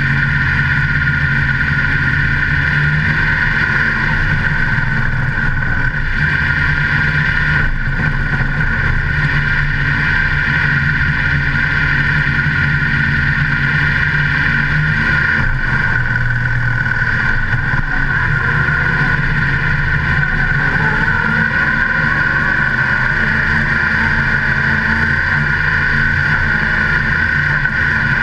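Modified race car's V8 engine running steadily, heard from a camera mounted on its hood as the car rolls along at low speed. About twenty seconds in, the engine note starts to rise and fall as the car picks up speed.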